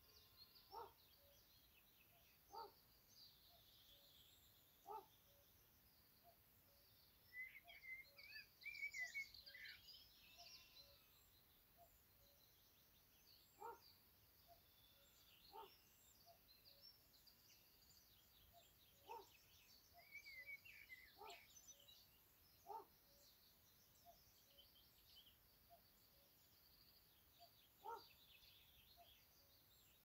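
Faint birdsong: several small birds chirping and trilling, busiest about eight to ten seconds in and again around twenty seconds in, with short low notes every couple of seconds.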